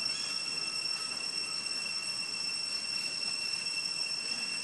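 Steady high-pitched whine holding one unchanging pitch, over a soft even hiss.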